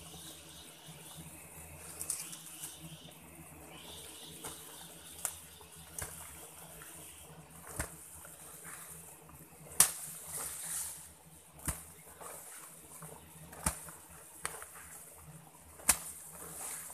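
A digging tool knocking into earth about every one to two seconds, with soil and leaf litter scraping and rustling between the strokes. The loudest knock comes about ten seconds in.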